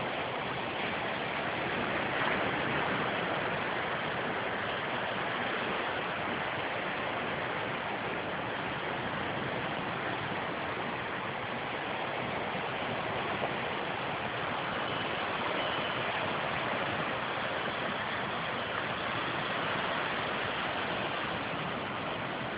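Steady rushing noise of ocean surf breaking on a beach.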